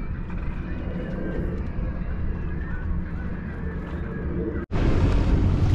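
Steady low drone of a boat's engine with wind and water noise. About four and a half seconds in, the sound drops out for an instant and comes back louder.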